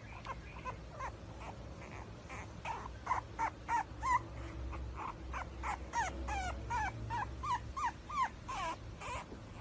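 French bulldog puppy whimpering: a long run of short, high whines, many sliding down in pitch. The whines come faster and louder from about three seconds in.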